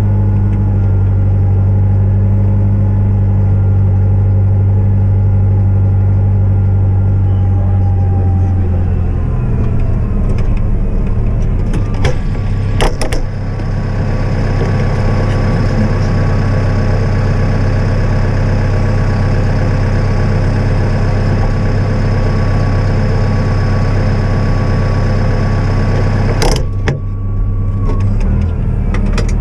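Diesel engine of a snow-clearing vehicle running steadily. About a third of the way in its note changes and a steady whine joins it, with sharp knocks a little before halfway and again near the end.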